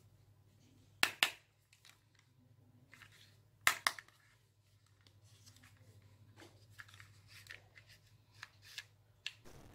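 Hard plastic toy gun being handled and worked: two sharp double clicks about a second in and near four seconds, then lighter scattered plastic clicks and rubbing.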